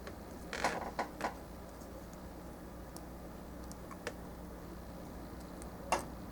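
Hard plastic gunpla model-kit parts clicking and tapping as they are handled and pressed together: three quick clicks in the first second and a half, a faint one around four seconds in, and a sharper one near the end, over a steady low hum.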